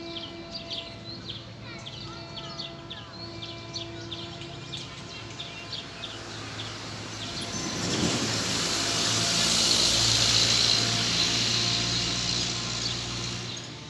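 Small birds chirping over faint steady held tones. About halfway through, a rush of noise swells up, is loudest a few seconds later, and fades away near the end.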